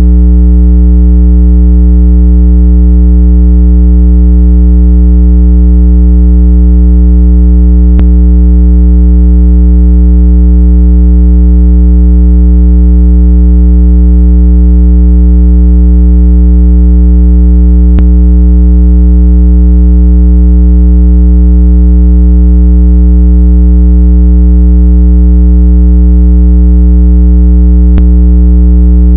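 A synthetic speaker-cleaning tone meant to shake water out of a phone speaker: one loud, steady, low-pitched tone with a stack of overtones, unchanging throughout. A faint click comes three times, about every ten seconds.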